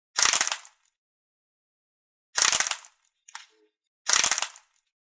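Slime crackling and crunching in three short bursts about two seconds apart, with a faint small crackle between the last two.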